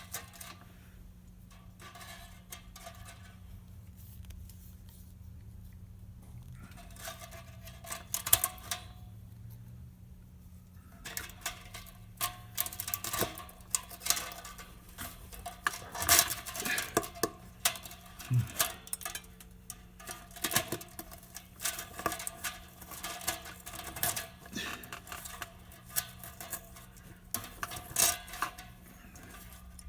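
Irregular light metallic clicks, taps and scrapes of pliers and wire J-clips being worked against a glass kiln's coiled heating element in the lid, sparse at first and coming thick and fast after about ten seconds. A steady low hum runs underneath.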